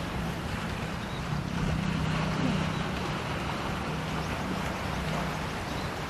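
Strong wind and waves against the shore, with a low steady drone from about a second and a half in until near the end.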